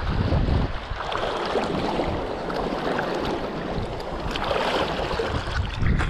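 Wind buffeting the microphone with low rumbling gusts near the start and again near the end, over a steady rush and splash of sea water past a kiteboard under way.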